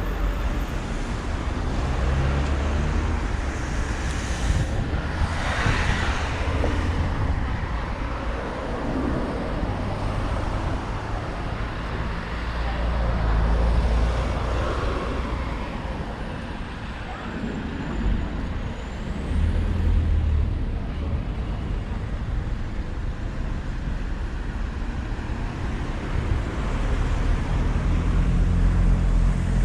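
Road traffic passing a pedestrian, with an uneven low rumble and one vehicle swelling past about five seconds in.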